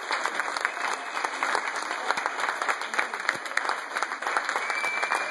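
A crowd applauding: many people clapping at once in a steady, dense patter.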